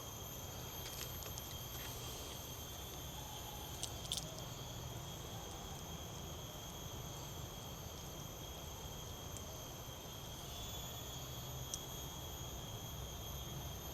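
Steady, faint, high-pitched drone of insects in tropical forest, with a couple of short clicks about four seconds in and near the end.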